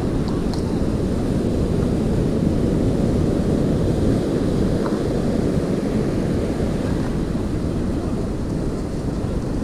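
Steady low rumble of wind buffeting the microphone, mixed with surf breaking and washing up the beach.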